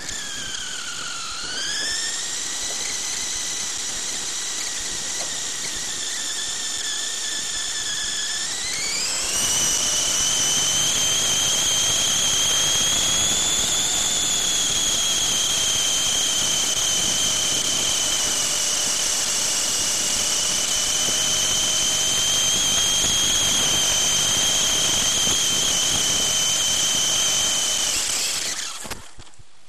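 Onboard sound of a radio-controlled off-road buggy: a loud, high-pitched motor and drivetrain whine that dips and climbs early on, then rises sharply about nine seconds in as the buggy speeds up and holds steady at the higher pitch. Near the end the whine drops away suddenly as the buggy runs into bushes.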